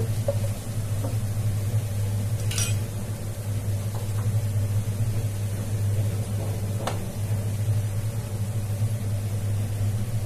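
Sliced onions frying in hot oil in a pan, a steady sizzle over a low hum, with a few light clinks of the spoon against the pan.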